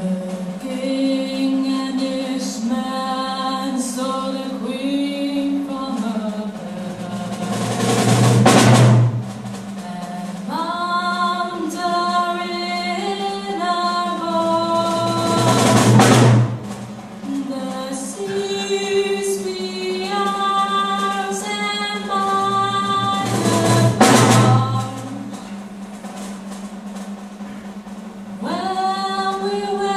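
Orchestral music with a sung melody over a held low note. A drum roll swells to a loud peak and breaks off three times, about eight seconds apart.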